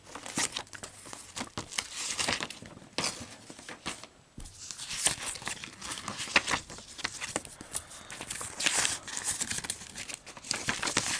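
Folded paper posters being handled, unfolded and laid down: paper rustling and crinkling in a run of crackles, with a brief lull about four seconds in.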